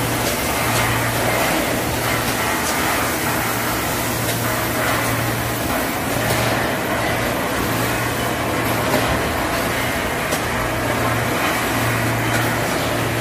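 Packaging-line machinery running: the steady mechanical din of a pancake-feeding conveyor and rotary pouch machine, with a low hum that comes and goes and scattered light clicks.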